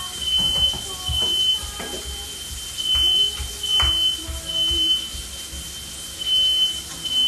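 Smoke alarm beeping over and over in a high-pitched tone, with a few knocks and clatters from cooking utensils.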